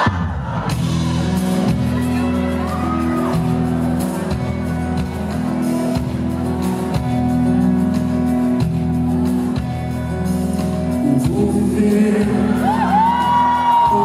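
Live concert music: a nylon-string acoustic-electric guitar playing a song intro over sustained low accompaniment, echoing in a large hall. A voice rises into a long held note near the end.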